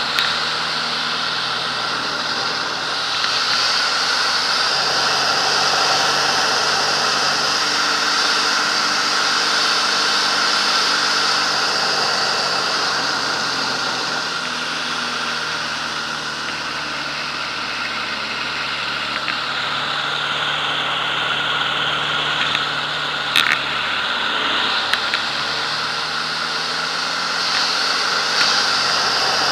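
Aerobatic biplane's engine and propeller running under heavy wind rush, heard from the cockpit, the sound swelling and easing as the plane rolls and loops. The rush eases a little past the middle, followed a few seconds later by a couple of sharp clicks.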